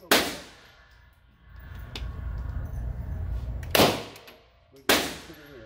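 Kriss Vector 9mm submachine gun fired in single shots: one right at the start, then two more about four and five seconds in, each echoing off the walls of an indoor shooting range.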